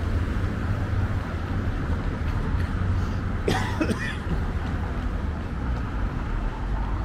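Steady urban traffic rumble from nearby road traffic. About three and a half seconds in, a short vocal sound from a person cuts through briefly.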